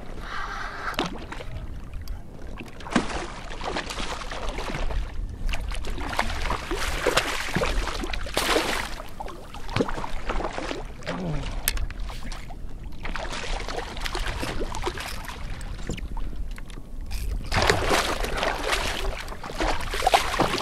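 Water splashing and sloshing at the side of a kayak as a hooked red drum thrashes at the surface, in several bouts with a few sharp knocks between them.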